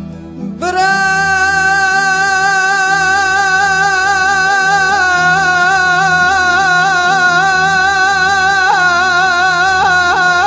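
Music from a Kurdish song: plucked-string notes give way, under a second in, to one long sustained melodic note with vibrato. The note steps down slightly in pitch about halfway through and is held over a low drone.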